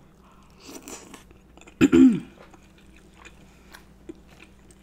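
Close-miked chewing of a sauce-coated piece of seafood, with small wet mouth clicks. About two seconds in, a short hum of enjoyment falls in pitch.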